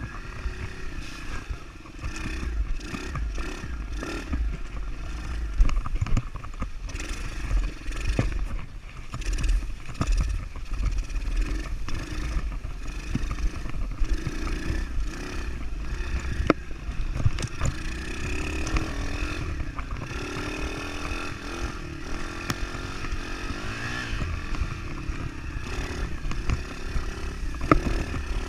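110cc four-stroke pit bike engine revving up and down as it is ridden over rough ground, the pitch rising and falling with the throttle. Frequent short knocks and rattles from the bike jolting over bumps.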